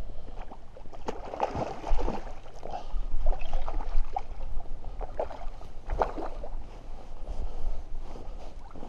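A rainbow trout splashing at the surface as a landing net is scooped under it and lifted out of the water, in irregular splashes and gurgles. Wind rumbles low on the microphone.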